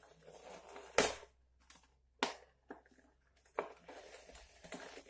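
Hard plastic smartwatch packaging being handled and pulled apart: crinkling and rustling with three sharp snaps, the loudest about a second in.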